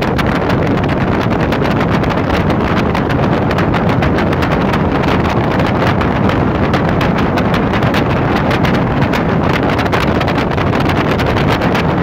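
Motorboat running fast, a steady rush of engine and churning water, with wind buffeting the microphone throughout.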